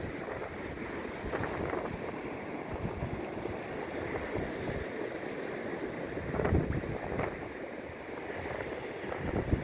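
Sea water washing and surging, with wind buffeting the microphone; the wash swells louder about six and a half seconds in and again near the end.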